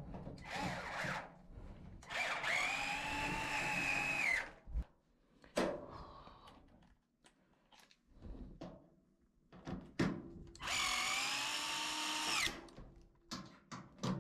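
Power drill running in two main bursts of about two seconds each, its pitch rising as it spins up, holding, and dropping as it stops. A shorter burst comes near the start, and there are scattered clicks and knocks between the runs.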